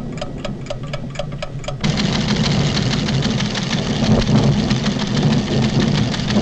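Cartoon sound effects of scientific instruments: an even clock-like ticking about four times a second, then about two seconds in a louder, rapid mechanical clatter over a low rumble.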